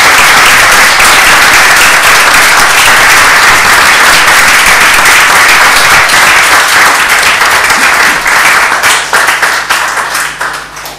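Audience applauding, a dense steady clapping that thins into scattered separate claps over the last couple of seconds and dies away near the end.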